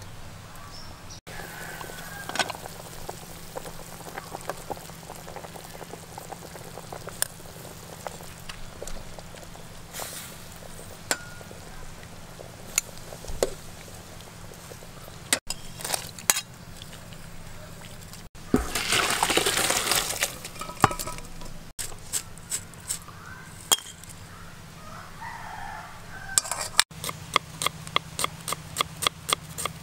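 Kitchen knife chopping shallots on a wooden cutting board, quick even chops about three a second near the end. Before that come scattered knocks and clinks of outdoor cooking, a rooster crowing, and a loud rushing noise lasting a couple of seconds about two-thirds of the way through.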